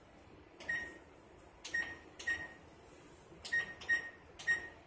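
Oven control panel on a gas range beeping as its touch keys are pressed to set a 375° preheat: six short beeps, each with a faint button click, at uneven intervals.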